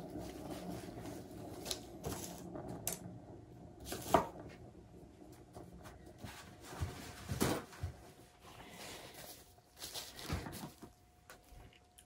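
A hand-spun turntable carrying a wet paint-pour canvas, whirring as it turns and running down, with a few knocks as it is pushed round again; the loudest knock comes about four seconds in.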